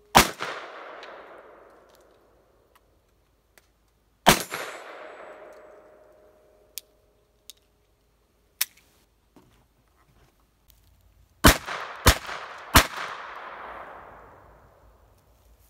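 Japanese Type 26 revolver firing: two single shots about four seconds apart, then three quick shots about half a second apart near the end, each with a long echoing tail. A steel target rings on after the second shot, and a few small clicks of the revolver being handled fall between the shots.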